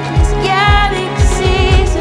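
Upbeat background music: a low kick drum about twice a second under a gliding melody line.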